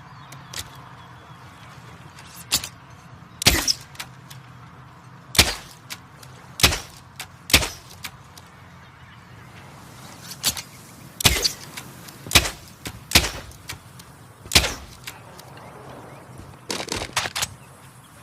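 Torque 35 bow being shot: about a dozen sharp cracks spaced roughly one to two seconds apart, with a quick rattling cluster near the end, over a low steady hum.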